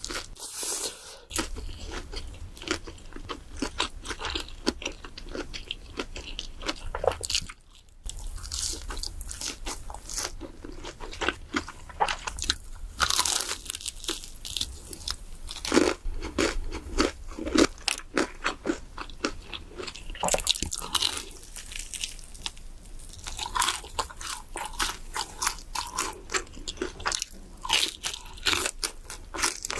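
Close-miked eating sounds of crispy KFC fried chicken: a rapid, irregular run of crunches as the crust is bitten and chewed, with a brief break about eight seconds in.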